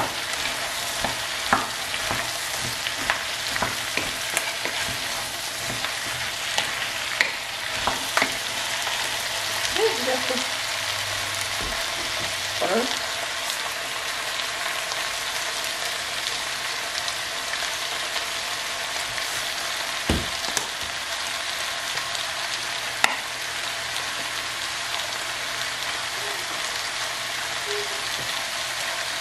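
Diced vegetables sizzling steadily in olive oil in a pot while a wooden spatula stirs and scrapes them, with a few sharp knocks of the spatula against the pot.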